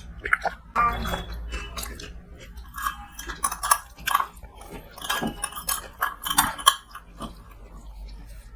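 Eating at a meal: chewing mixed with many short clicks and knocks of utensils against dishes.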